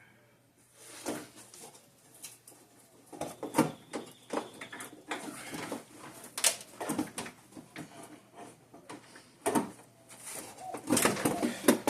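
Irregular knocks, clicks and clunks of a plastic coolant reservoir being worked loose and pulled out of a car's engine bay, with the loudest knocks about a third of the way in, midway, and near the end.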